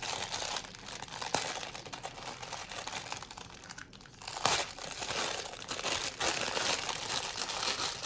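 Packaging crinkling and rustling as a new set of LED strip lights is unwrapped by hand, with a couple of sharp snaps about a second and four and a half seconds in.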